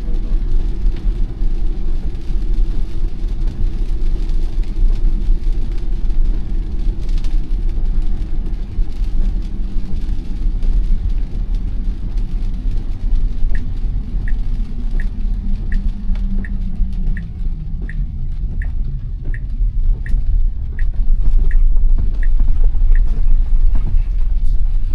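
Cabin road noise of a Tesla Model Y electric SUV driving on wet pavement: a steady low rumble with a hum that drops in pitch. Partway through, a turn signal ticks evenly, about one and a half times a second, for around ten seconds.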